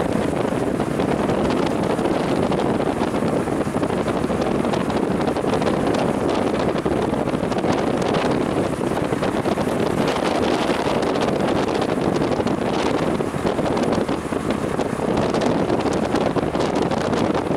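Wind buffeting the camera microphone in an open mountain pass, a steady rushing with small gusts.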